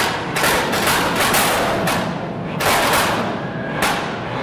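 Fiat 500 Abarth's 1.4 Fire TurboJet engine blipped at a standstill, its exhaust firing strings of loud, sharp pops and bangs: a rapid run in the first two seconds, another burst near three seconds and a single crack near four.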